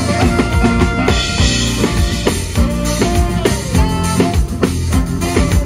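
Live band playing an instrumental passage, a drum kit keeping a steady beat under held instrument tones.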